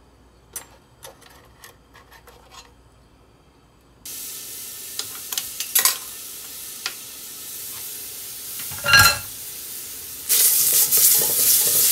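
Olive oil in a stainless steel pot starts to sizzle suddenly about four seconds in as minced garlic goes into it, after a few light handling clicks. Near nine seconds a brief ringing scrape against the pot stands out, and the sizzle grows louder toward the end.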